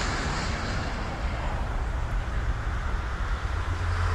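Roar of an arriving jet airliner fading away after it has passed, over steady road traffic noise. A low engine hum grows near the end.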